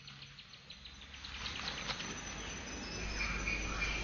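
Forest insects chirping in rapid, repeated trills, fading up steadily from faint to moderate.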